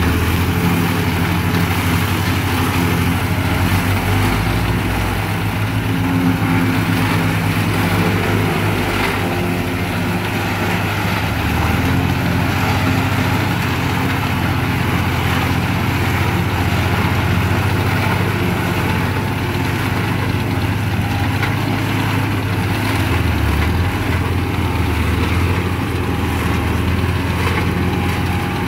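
Tractor engines running steadily under load while a Papec one-row forage chopper cuts standing corn and blows the chopped corn up its spout into a wagon: a continuous mechanical din of engine, cutter and blower.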